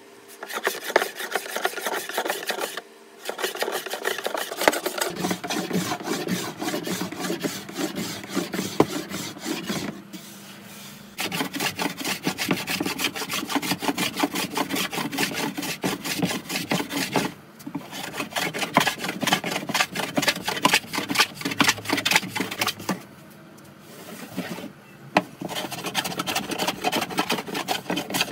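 Metal hand plane shaving an old wooden dough table in quick, repeated strokes, broken by a few short pauses.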